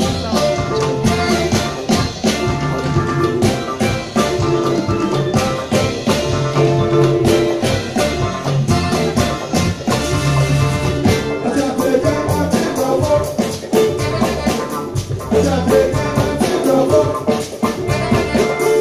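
Live band playing an Afrobeat/highlife groove, with drum kit and percussion keeping a steady beat under pitched instruments.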